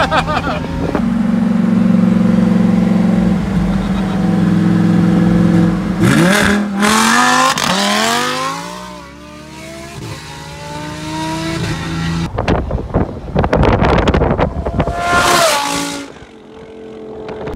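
Lamborghini Huracán V10 engine revving hard and accelerating, its pitch climbing and then falling away, after a steady engine drone. A run of sharp crackles follows, then one more short rev near the end.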